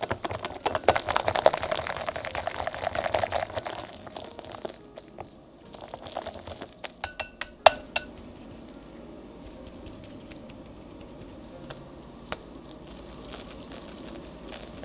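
Balloon whisk beating fresh cream by hand in a glass bowl, fast rapid strokes for about four seconds, finishing the cream after machine whipping. A few light taps follow, then one sharp ringing clink, and the rest is faint.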